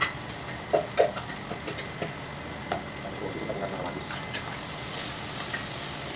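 Diced onion and ginger sizzling in butter in an aluminium pot, stirred with a metal ladle that knocks and scrapes against the pot a few times, loudest about a second in. Chopped tomatoes go in about four seconds in, and the sizzle turns brighter and louder near the end.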